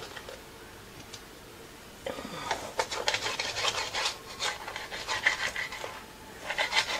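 Kitchen knife sawing through a desalted cod loin on a plastic cutting board, a run of short scraping strokes that starts about two seconds in.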